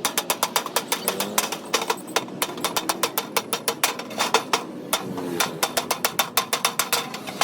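Rapid, sharp tapping or clicking, about five hits a second and slightly irregular, with a faint wavering tone underneath.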